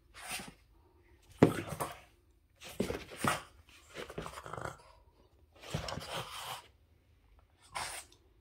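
Boston terrier huffing and snorting in short, separate bursts, about six over eight seconds, while it noses and paws at a squeegee.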